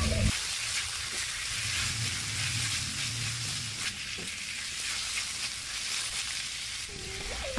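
Sliced carrots and meatballs sizzling in hot oil in a pan while they are stirred, with a few light knocks from the spatula.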